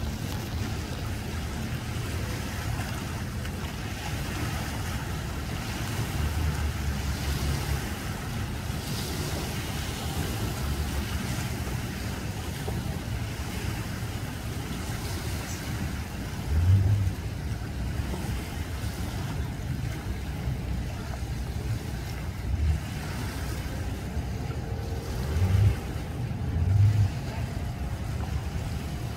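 Steady low rumble of idling engines with water lapping, and wind buffeting the microphone in a few short gusts, the strongest near the end.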